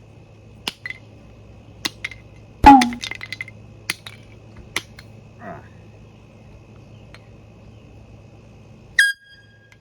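A hammer strikes a handheld air horn about half a dozen times, each blow a sharp knock. The loudest blow comes about two and a half seconds in and is followed by a quick rattle. The last blow, near the end, rings with a metallic tone for under a second.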